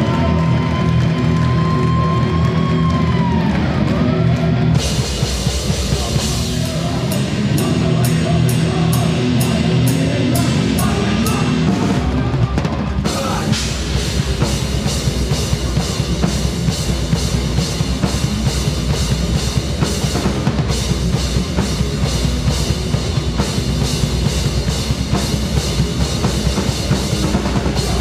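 A band playing live, with the drum kit close and up front. It builds up: a held note that bends and fades over the first few seconds, regular cymbal strokes about two a second from about five seconds in, the bass drum coming in about ten seconds in, and the full kit and band hitting together about thirteen seconds in.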